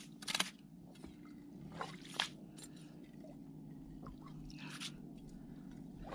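Slush and ice in an ice-fishing hole squishing, crunching and sloshing as the hole is cleared by hand, in a few short scrapes.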